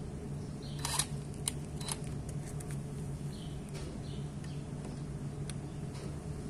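Scattered sharp clicks and light taps of a cordless drill/driver being handled and fitted onto the scooter's variator pulley nut, the loudest about a second in, over a steady low hum.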